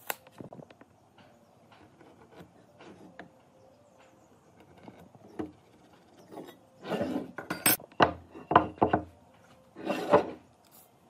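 Hand tools being handled on a wooden workbench: a steel tape measure snaps shut at the start, followed by light ticks and pencil scratches. In the second half there are louder knocks and scrapes as a speed square and a pine board are set down and shifted on the bench.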